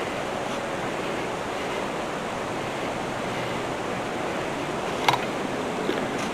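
Steady rushing outdoor noise with no distinct tones, like wind across the microphone, with one short click about five seconds in.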